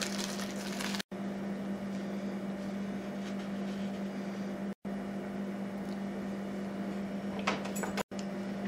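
Steady low electrical hum of room equipment, dropping out completely for an instant three times. A short sharp click sounds about a second before the end.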